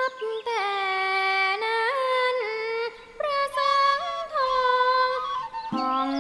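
A woman singing a slow song with long, held notes that slide between pitches, over soft music, with a short break about three seconds in; a lower voice joins near the end.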